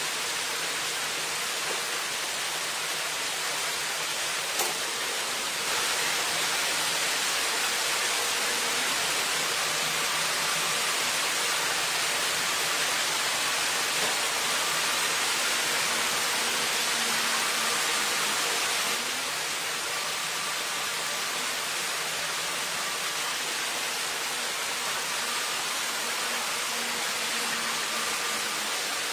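Steady rush of river water over rapids, getting louder for a stretch in the middle, with a faint steady hum underneath.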